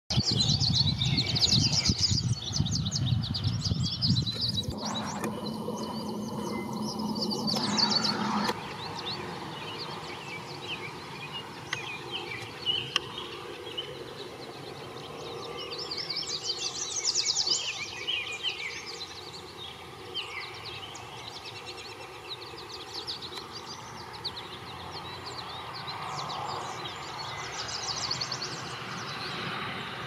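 Wild songbirds chirping and singing in the open, with several quick high trills, over a steady low background rumble that is loudest in the first few seconds.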